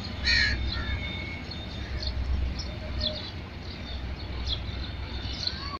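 Small birds chirping and calling, with one louder call near the start, over a low steady rumble from a diesel locomotive running away into the distance.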